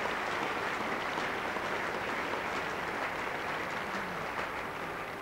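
Large cricket crowd applauding a batsman walking off after being dismissed: a steady wash of clapping that eases slightly near the end.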